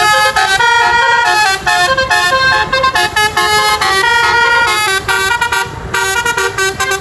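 Bus-mounted basuri multi-tone musical horn playing a fast melody of short stepping notes, several pitches sounding together, with a brief break about six seconds in.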